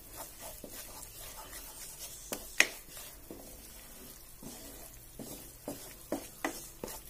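Wooden spatula stirring and scraping a butter-and-flour roux around a nonstick frying pan, with a faint sizzle of the flour frying in the butter. A single sharp click about two and a half seconds in stands out as the loudest sound.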